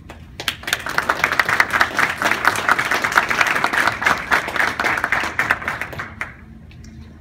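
Audience applauding: many hands clapping, starting within the first second and dying away about six seconds in.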